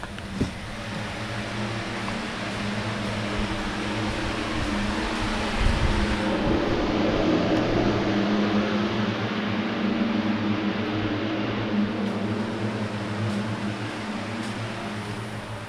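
A steady motor hum with a low drone, building slowly over the first several seconds and easing off near the end.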